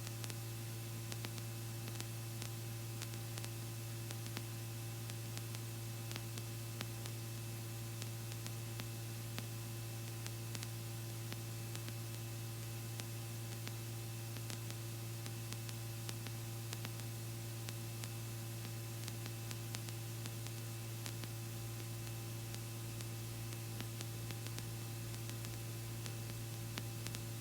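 Steady low hum with hiss and faint scattered clicks on a Robinson R44 helicopter's intercom audio feed, the aircraft's noise coming through only as a muffled drone.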